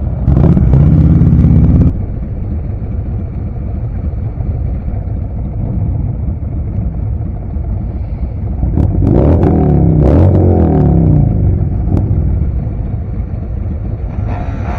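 Motorcycle engines running at low speed, a steady rumble. It gets louder for a moment about half a second in, and again about nine seconds in, where an engine's pitch rises and falls as it is throttled up and eased off.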